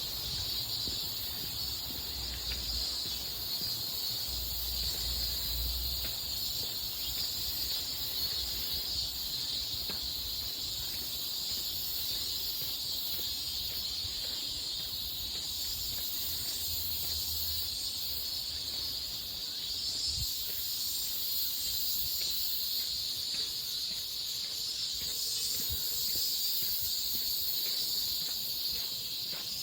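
A steady, high-pitched chorus of insects, such as crickets, trilling without a break.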